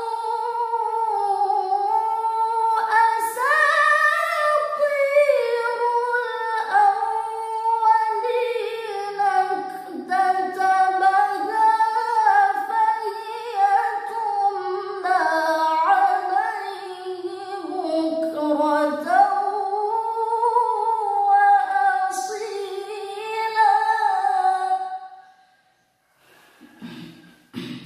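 A woman's voice chanting Quran recitation in Arabic, with long held melodic notes and ornamented turns. The recitation ends about 25 seconds in, followed by a few brief faint sounds near the end.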